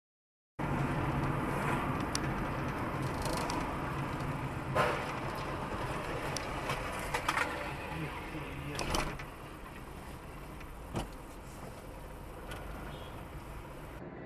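Road and engine noise inside a moving car, picked up by a dashcam, with several sharp knocks and thumps; the loudest come about five seconds in and near nine seconds.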